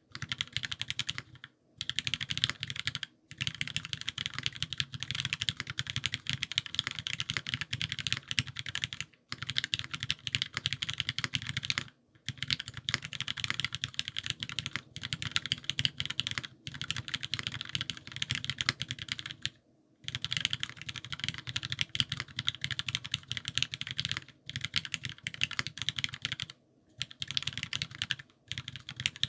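Continuous fast typing on an Owlab Voice65 gasket-mount mechanical keyboard with lubed HyperGlide Cherry MX Black linear switches, Swagkeys 70 g springs and GMK keycaps. Dense key strokes with brief pauses every few seconds.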